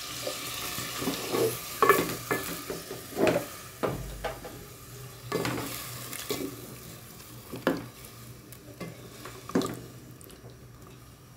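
Spoon stirring chicken, tomatoes and water in a cooking pot, knocking against the pot about ten times at irregular intervals, over a soft sizzle that dies away toward the end.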